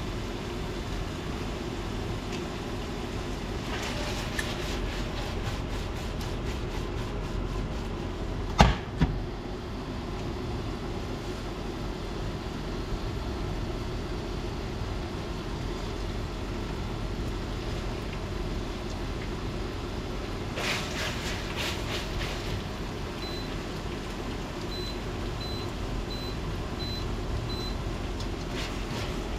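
A steady appliance hum runs throughout while a silicone spatula stirs and scrapes linguine in a stainless steel pan on an induction cooktop. There is a sharp knock about a third of the way in, and faint short beeps repeat near the end.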